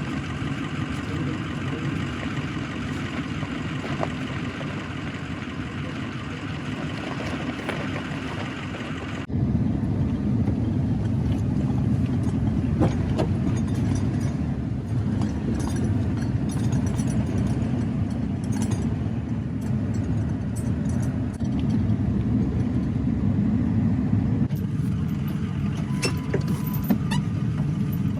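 Pickup truck engine running steadily, the sound growing louder and deeper about nine seconds in.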